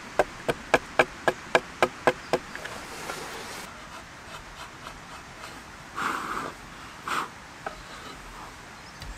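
Small axe chopping at a fresh ash paddle blank: a quick, even run of about ten sharp strikes, roughly four a second, over the first two and a half seconds. Then a drawknife shaves along the paddle shaft, with two louder rasping strokes about six and seven seconds in.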